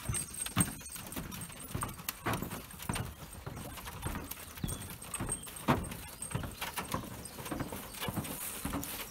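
Footsteps on the boards of a wooden footbridge, an even walking pace of about two steps a second.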